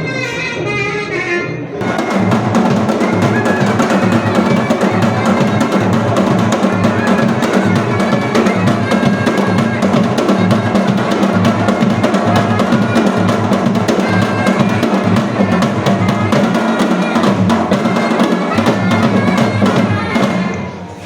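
Sanai (shehnai) melody for the first two seconds, then the chaughada kettledrums strike up a fast, continuous roll of stick strokes that dies down just before the end.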